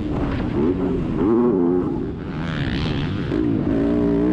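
Onboard engine of a 250cc four-stroke motocross bike at racing speed, its pitch climbing and falling as the throttle is worked. About two seconds in the revs drop off briefly under a rush of wind noise, then climb again near the end.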